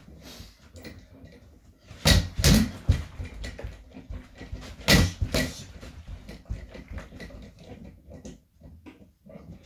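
Fists hitting a free-standing reflex bag on its sprung pole: a quick run of hits about two seconds in and a pair about five seconds in, with lighter knocks of the bag and stand between.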